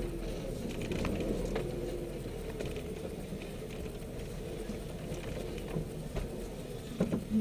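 Suzuki Samurai's engine running at low revs as the 4x4 rolls down a rough dirt track, with scattered knocks and rattles from the body and suspension over the ruts; a cluster of knocks comes near the end.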